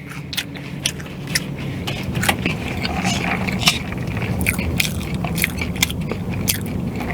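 A person chewing and eating fast food close to the microphone, with many short sharp mouth clicks, over a steady low rumble.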